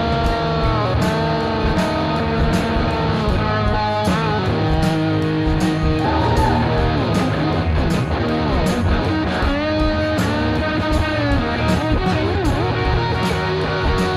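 Rock music with electric guitar playing over a steady beat.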